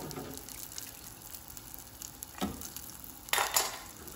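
Almond briouates frying in hot oil with a soft, steady sizzle. A few sharp metal clinks of the perforated skimmer against the pans, the loudest pair about three and a half seconds in.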